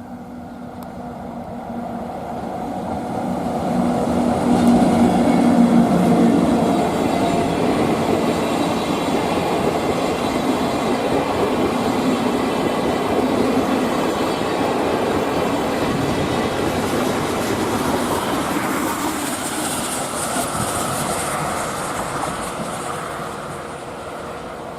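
EF64 electric locomotive hauling a train of six vintage passenger coaches past at speed. Its steady hum swells and is loudest about five seconds in, then the coaches' wheels run by in a continuous rolling rumble that fades near the end.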